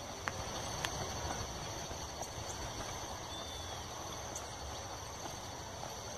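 Outdoor evening ambience: insects shrill steadily at a high pitch over a low rumble, with a few faint ticks and one short bird chirp about halfway through.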